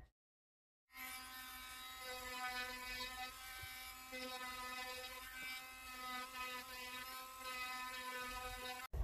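Handheld rotary tool running with a steady whine as its bit sands and shapes a carved wooden lure body. It starts about a second in and cuts off abruptly just before the end.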